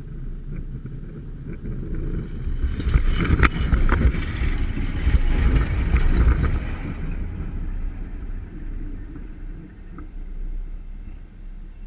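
Train rolling right over a track-level microphone: a low rumble builds, peaks with sharp wheel clacks on the rails about three to four seconds in, then fades as the train moves away.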